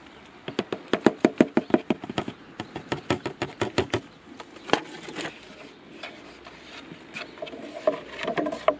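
A wooden stick stirring water in a plastic watering can, knocking rapidly against the inside for a few seconds, then one last knock. The stick is mixing nematodes into water.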